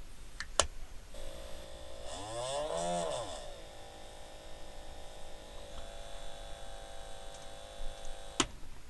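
Small electric hobby motor being powered up: clicks as the leads connect, then a steady whine that swings briefly up and back down in pitch about two to three seconds in, and cuts off with a click near the end. It is quite noisy, too noisy for a turntable drive.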